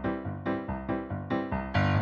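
Piano music, a run of struck notes at about three a second.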